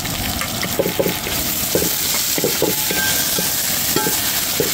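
Pounded ginger and garlic frying and sizzling with crushed shallots in hot oil in a large metal pan, stirred with a perforated metal ladle that gives short, irregular scrapes and knocks against the pan.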